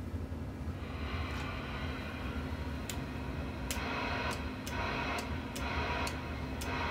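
Sharp clicking from the front-panel switches of a Gray 300 CB linear amplifier being worked by hand, about eight clicks at roughly two a second from about three seconds in, over a steady electrical hum and a hiss that comes up about a second in.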